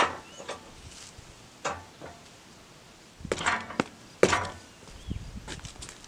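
A handful of separate sharp knocks and clunks of wood and metal, some with a short ring, as the ash log is handled and set on the sawmill bed.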